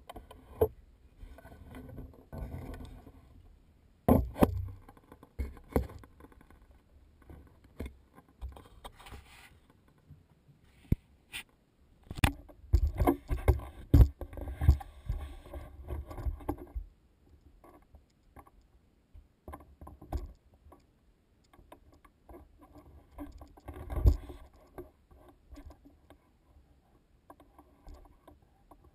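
Hiker scrambling over loose rock: irregular footsteps, knocks and scrapes on stone, with the rubbing and bumping of a handheld camera mount. The sounds come in clusters, busiest in the middle, with one sharp knock toward the end.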